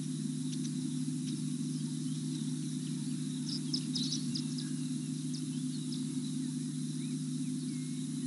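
Outdoor bush ambience: a steady low hum throughout, a faint steady high insect drone, and birds chirping, most thickly about halfway through, with a few short whistled calls near the end.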